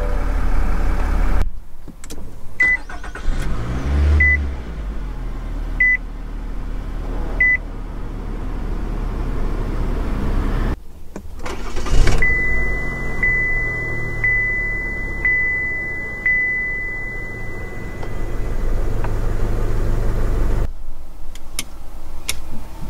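A run of car engine starts heard from the driver's seat: a Chevrolet truck's engine idling, then an engine cranking and catching about four seconds in while a short dashboard chime repeats every second and a half, then a Cadillac's engine cranking and catching about twelve seconds in, the loudest moment, followed by a steady warning chime with soft pulses. Near the end a Mercedes-Benz cabin comes on with a quieter hum.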